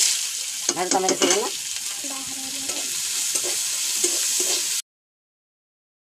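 Chopped onions and green chillies hitting hot oil in an iron kadai and sizzling loudly, stirred with a metal spatula. The sizzle starts suddenly and cuts off abruptly a little before the end.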